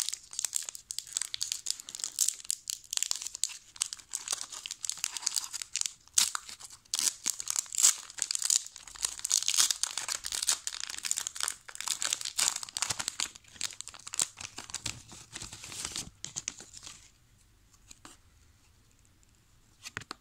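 A foil Pokémon trading-card booster pack is torn open and crinkled in the hands. The wrapper crackles and rustles in quick uneven bursts, then stops a few seconds before the end.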